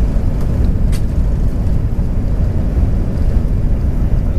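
Airbus A380-800 heard from inside the cabin during takeoff: a loud, steady low rumble of its engines and the rushing air, with a faint click about a second in.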